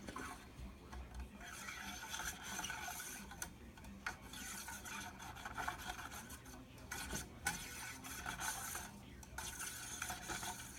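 A small cleaning brush scrubbing metal AR-15 parts, in four bouts of quick back-and-forth scratching with short pauses between them.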